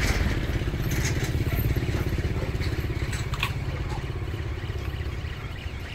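An engine running with a fast low throb, slowly fading, with a few light clicks over it.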